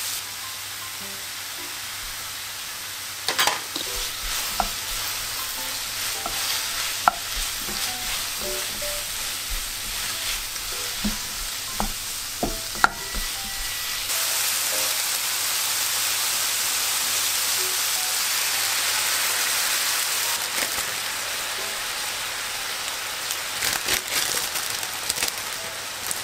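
Pork and mixed mushrooms sizzling in a frying pan, stirred with a wooden spatula that knocks and scrapes against the pan. About fourteen seconds in, the sizzle turns louder and steadier, and a few more knocks come near the end.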